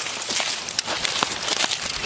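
Footsteps crunching through dry undergrowth: an irregular crackling and rustling with many short clicks.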